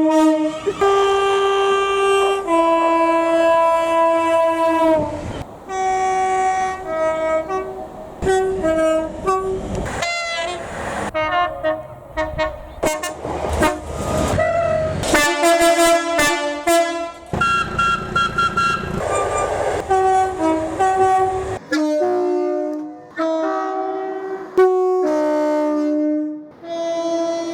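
British railway locomotive air horns played as a tune: a long run of short and held notes switching between a few pitches. Train running noise sits underneath until about three-quarters of the way through.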